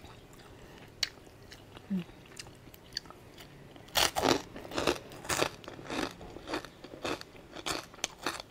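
Close-up mouth chewing and crunching of crispy pork cracklings: a few faint clicks at first, then from about four seconds in a run of loud crunchy bites, about two a second.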